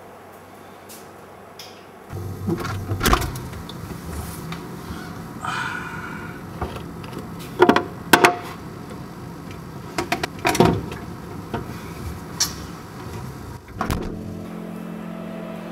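Horror-film sound design: a low rumbling drone comes in about two seconds in, with a series of sharp knocks or hits scattered through it. A held musical tone comes in near the end.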